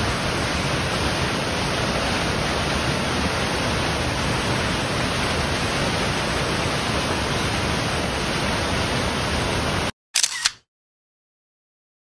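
Waterfall rushing steadily down a narrow rock chute, cut off suddenly after about ten seconds, followed by a single brief camera-shutter click.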